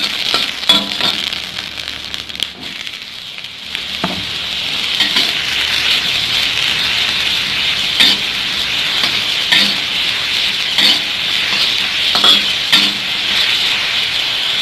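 Shimeji mushrooms sizzling in hot oil in a wok as they are stir-fried, with a metal spatula scraping and knocking against the wok every second or two. The sizzle dips a couple of seconds in, then builds and holds steady.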